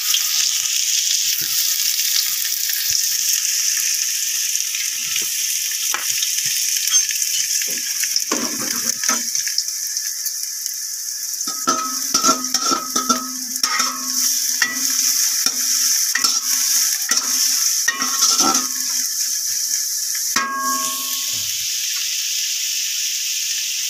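Sliced onions sizzling steadily in hot oil in a metal pot. From about a third of the way in, a utensil stirs them, scraping and clinking against the pot in spells.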